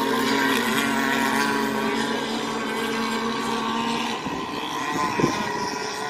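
Radio-controlled racing boat engines running at speed across the water, a steady engine note with several tones layered together. About four seconds in the strongest note drops away, and a short sharp sound comes about a second later.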